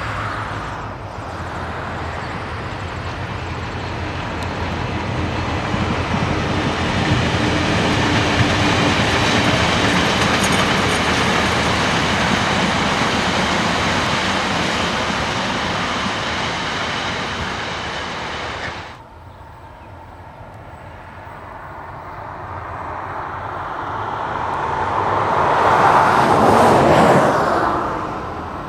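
Diesel-hauled passenger train passing: DBR class locomotive 1254 and a second diesel locomotive pulling a rake of carriages, engines running and wheels on the rails. It is loud for many seconds, then drops off abruptly about two-thirds through. A train then approaches, growing steadily louder to a peak near the end.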